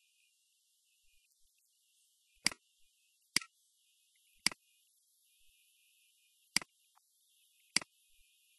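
Computer mouse clicking: five single sharp clicks at uneven intervals, over a faint steady hiss.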